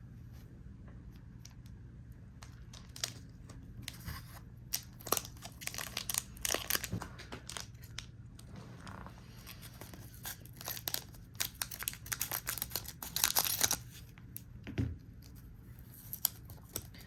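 Foil wrapper of a trading-card booster pack being torn open and crinkled, in two stretches of crackling with a dull thump near the end.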